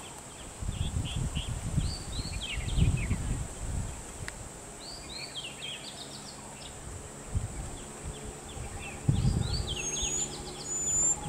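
Birds chirping in quick runs of short, downward-sweeping calls over a steady high insect drone. Irregular low rumbles come and go, and a low steady hum joins after about eight seconds.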